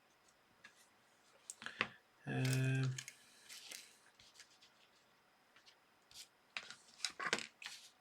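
Scattered clicks and knocks of small tools and parts being handled on a workbench, with a short steady hum of a voice about two seconds in.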